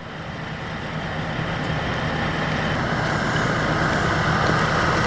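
Fire engine's diesel running steadily with a low hum under a dense noise that slowly grows louder.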